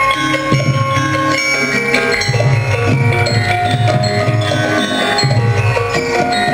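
Javanese gamelan music: struck metallophones ringing layered, held notes over a repeating low drum pulse.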